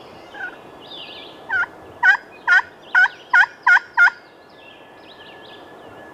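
Turkey yelping: a series of about seven evenly spaced yelps, roughly half a second apart, the first soft and the rest loud.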